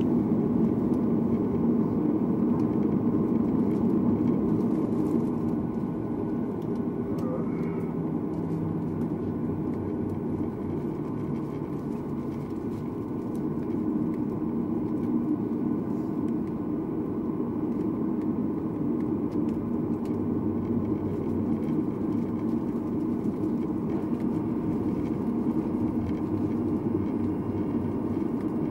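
Cabin noise of a Boeing 737-800 taxiing on the ground with its CFM56-7B engines at idle: a steady low rumble, easing a little about six seconds in and picking up again around fourteen seconds.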